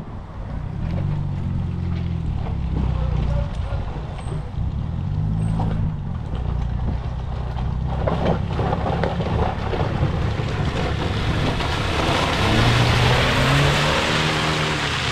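Land Rover Freelander 1's engine revving up and down as it drives through deep, wet mud ruts. Near the end the wheels churn and spray mud, and a rushing hiss grows louder over the engine.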